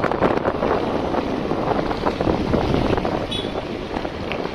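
Wind buffeting the phone's microphone: a steady, rough rumbling noise with no speech.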